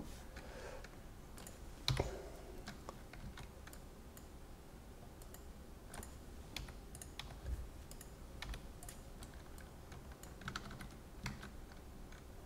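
Computer keyboard and mouse clicking: scattered light key and button clicks, including Ctrl+Z undo presses, with one louder click about two seconds in.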